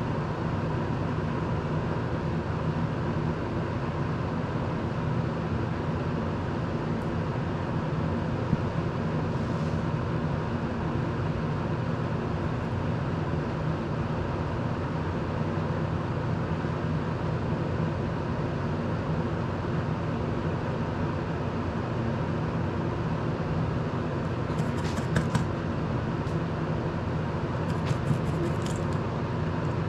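Electric desk circulator fan running steadily, a constant noise with a low hum. Near the end, a few faint light scrapes and clicks as the soldering iron tip is wiped in a brass-wool tip cleaner.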